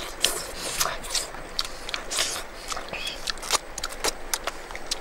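Two people eating cooked fish with their fingers: lip-smacking, chewing and sucking on fingers, heard as irregular wet clicks several times a second.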